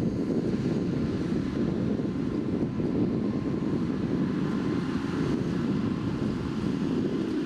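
Tractor and Massey Ferguson 2200 series large square baler running steadily in the field, a constant low mechanical rumble with wind on the microphone.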